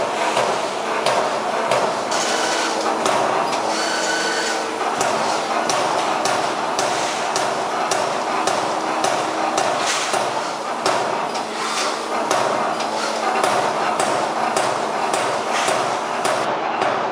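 Finnpower F5-25 SB CNC turret punch press punching sheet metal: a quick, uneven run of sharp punch strokes, a few a second, over a steady machine hum.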